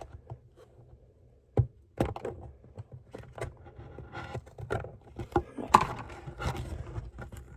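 Handling noises: a few sharp knocks and clicks with crinkly rustling in between, as the slime packaging in its plastic bag is picked up and handled.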